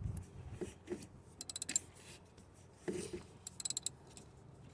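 Hand socket ratchet clicking in two quick runs as it is swung back between pulls, tightening the lock nut on the clutch rod's pedal bolt, with a few light knocks of the tools in between.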